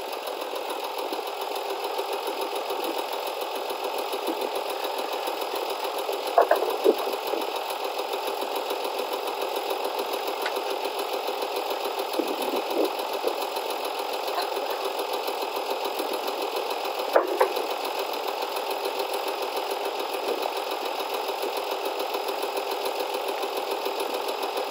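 Hesston 1880DT tractor engine idling steadily, with a couple of sharp clanks about six seconds in and again about two-thirds of the way through.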